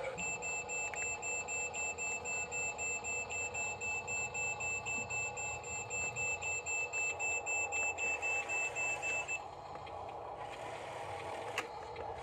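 Electronic warning beeper of a toy RC construction vehicle: a high, rapid beeping, about three beeps a second, that stops about nine seconds in. A single click follows a couple of seconds later.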